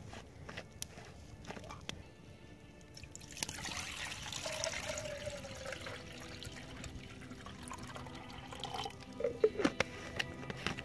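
Water pouring and dripping, with a run of sharp drips near the end. Soft background music comes in partway through.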